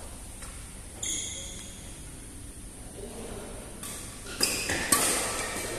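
Badminton rally: rackets striking the shuttlecock, with two sharp cracks about half a second apart late on, the loudest sounds. A sudden high squeak about a second in is typical of court shoes on the floor.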